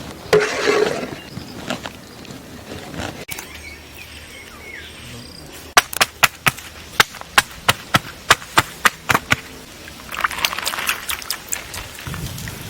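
A quick run of about a dozen sharp knocks or taps, roughly three a second, starting about six seconds in, with a brief noisy rustle near the start and again near the end.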